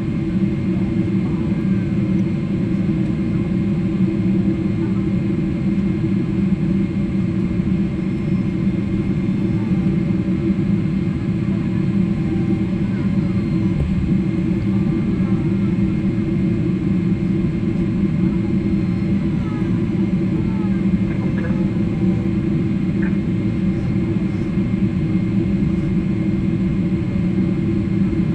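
Steady low droning rumble of a vehicle in motion, heard from inside it, even and unbroken throughout, with two strong steady hum tones in the low range.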